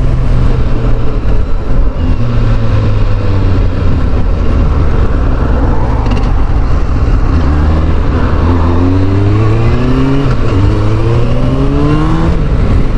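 Suzuki GSX600F's inline-four engine and exhaust under way on the road. The engine note holds fairly steady for the first several seconds, then climbs steadily through the revs from about eight seconds in and drops back near the end.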